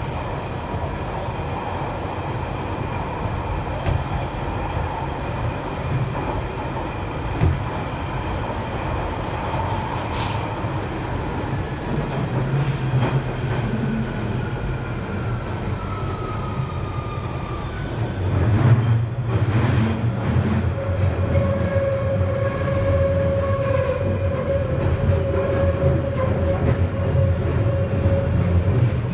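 London Underground 1992 stock train running through a tube tunnel, heard from inside the carriage: a steady low rumble of wheels on rail with whining tones over it. A whine falls slowly in pitch around the middle, and about two-thirds through the rumble grows louder and a new steady whine sets in.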